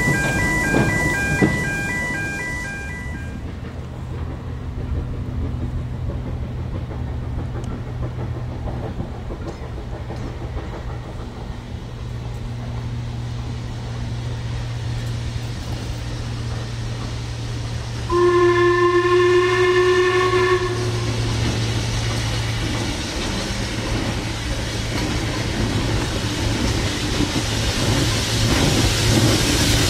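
Steam locomotive whistle giving one blast of about two and a half seconds, over a steady low hum. Near the end a train's running noise grows louder as it approaches.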